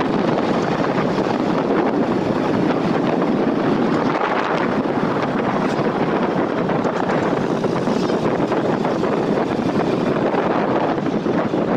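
Steady wind rushing over the microphone of a motorcycle riding along a road, mixed with the bike's running noise.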